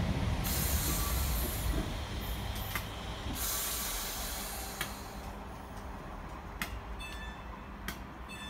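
ScotRail passenger train running past along the platform and pulling away, its low rumble fading. Two bursts of hissing come early and in the middle, with a few sharp clicks as the carriages go by.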